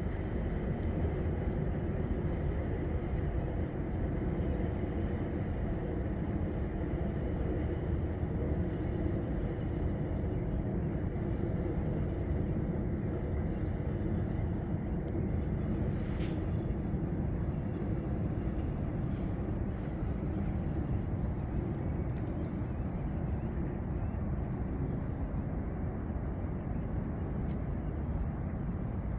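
Steady low rumble of distant city traffic across open water, with a few faint, brief high chirps or ticks about halfway through.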